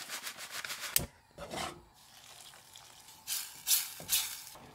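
Crushed potato chip crumbs rattling out of a crinkling foil chip bag into a metal saucepan. Later a fork stirs and scrapes a wet chip mash in the pan, in two short scratchy bursts.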